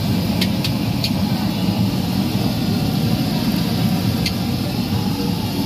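Street-cart wok cooking: the gas burner under a large steel wok gives a steady low rush, and a metal spatula strikes the wok in a few short clinks, three in the first second and one more past four seconds.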